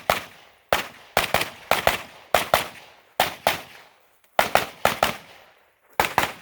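A series of gunshots fired in quick pairs, each pair a fraction of a second apart with short pauses between them, as a competitor engages targets on a practical shooting stage.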